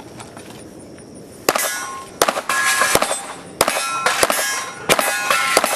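A fast string of pistol shots in a practical shooting stage, beginning about a second and a half in, roughly ten shots in quick pairs and bursts. A metallic ringing hangs after the shots.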